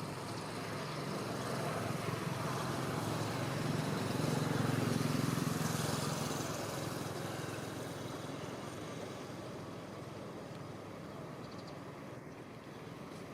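A motor vehicle passing: a steady engine-and-road noise that swells to its loudest about five seconds in and then slowly fades away.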